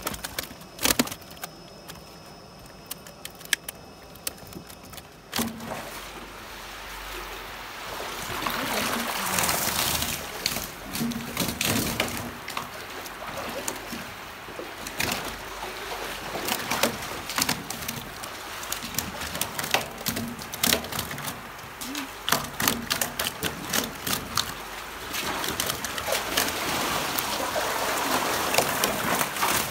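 Shallow water splashing and sloshing as someone wades through a nearly drained fish tank with a landing net, with scattered sharp clicks and knocks. The first five seconds or so hold only the clicks; the water noise comes in after that and is loudest around ten seconds in and again near the end.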